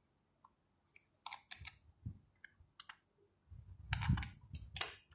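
Small screwdriver work on a 70mai Pro dash cam's plastic casing as its back screws are taken out: scattered sharp clicks and light knocks, busiest near the end.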